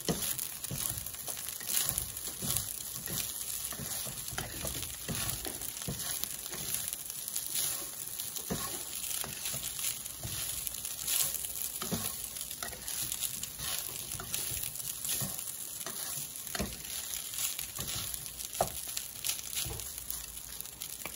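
Fried rice sizzling in a hot pan while a wooden spatula stirs and turns it. There is a steady sizzling hiss with irregular scraping taps of the spatula against the pan.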